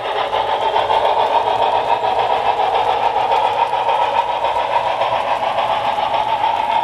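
Model passenger train running past on layout track: the steady rolling rumble of its cars' metal wheels on the rails, with a fine, fast clatter.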